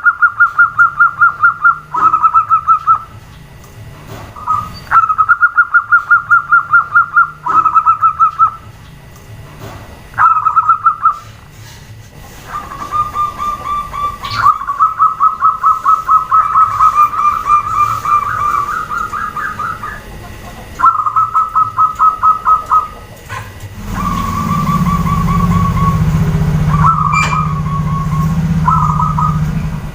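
Zebra doves (perkutut) calling: repeated runs of rapid, evenly pulsed notes, most about a second long and one running about seven seconds, with short gaps between. For the last several seconds a low steady hum sits underneath.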